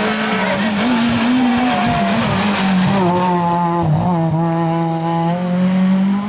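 Rally car engine held at high, fairly steady revs, its note dipping slightly about halfway through.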